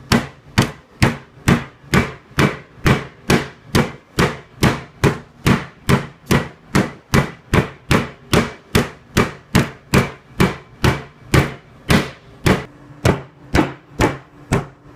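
Meat tenderizer mallet pounding raw steaks on a plastic cutting board: a steady run of sharp, evenly spaced whacks, a little over two a second.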